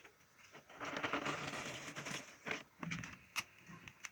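Lumps of charcoal being handled and added to a charcoal stove: a rustle lasting about a second, then a few scattered clinks and knocks.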